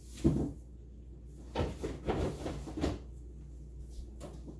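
A handful of short knocks and clunks from objects being handled: one sharp knock just after the start, then several more in quick succession between about one and a half and three seconds in.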